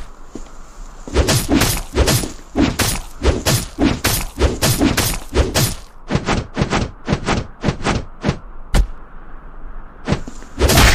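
Cartoon fight sound effects: a fast run of punch and hit impacts, about three to four a second, for most of the stretch. A lone hit follows, then a short gap, then another burst of hits near the end.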